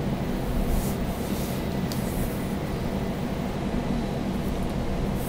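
Steady low room hum, with a few faint scratchy strokes of a felt-tip pen drawing curved lines on paper in the first two seconds.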